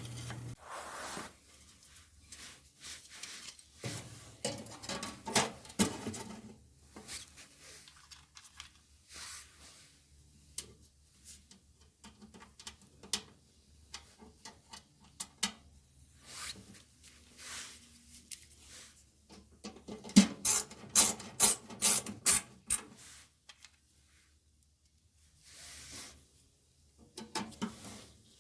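Scattered clicks, taps and rubbing of dryer parts and tools being handled during work on the blower housing, with a quick run of sharp clicks about two-thirds of the way through.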